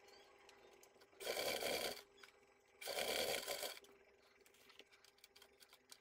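Sewing machine running in two short stitching bursts, each under a second and about a second apart, over a faint steady motor hum, as a zipper seam is stitched through faux leather.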